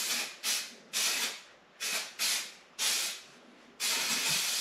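Aerosol can of Four Connect spray adhesive hissing in a series of short bursts, about six, the last one about a second long, as glue is sprayed onto felt pieces in an even coat.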